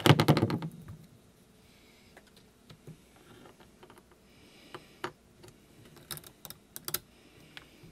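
Small clicks and taps of hands handling a wire, a circuit board and tools on a workbench cutting mat, with a loud clattering rattle in the first second and scattered light ticks after.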